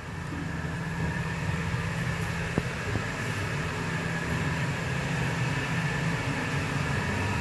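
Steady whir of a kitchen chimney (range hood) exhaust fan running over a gas stove. It grows louder in the first second as the hood comes closer, then holds steady.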